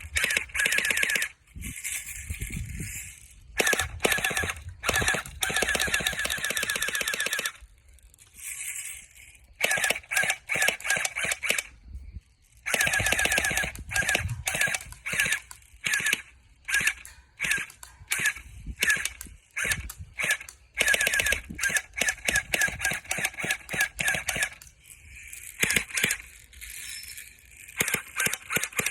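Airsoft P90 firing in rapid automatic bursts, some lasting several seconds, with shorter bursts and single shots between pauses.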